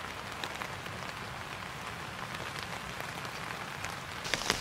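Steady rain falling: an even hiss dotted with the ticks of single drops, the drops growing louder and more frequent near the end.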